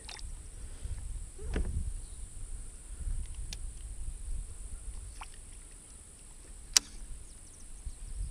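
Fishing rod and tackle handled in a kayak: a swish about a second and a half in, then a few light clicks, the sharpest near the end, over low wind rumble on the microphone.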